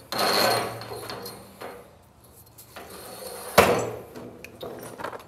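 Black-painted garage door torsion spring sliding along the steel torsion shaft, a metallic scrape that fades over about a second and a half, then a single sharp clank about three and a half seconds in.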